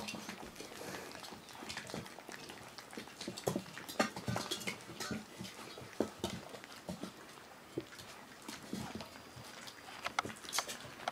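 A litter of puppies eating puppy food together from a metal pan: busy, irregular lapping, chewing and smacking, with many short clicks.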